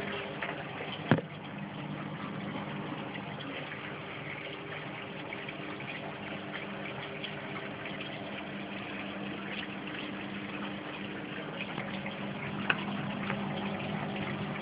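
Reef aquarium's pumps humming steadily while water circulates and splashes through the tank and sump. A sharp knock about a second in, and a smaller click near the end.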